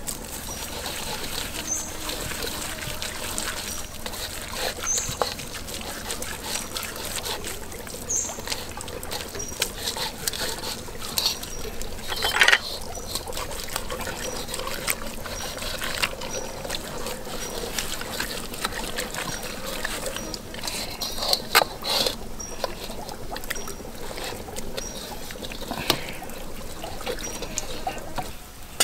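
Wet squishing and rubbing as hands massage a chili-and-herb marinade into raw pork ribs in a metal wok, with occasional clicks against the pan. Underneath runs the steady trickle of a stream, and a short high chirp repeats about once a second.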